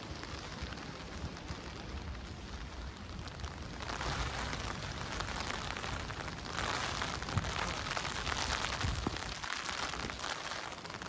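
Rain falling steadily, a fine patter and hiss, with wind rumbling on the microphone underneath. The hiss grows louder about four seconds in and again a little past six seconds.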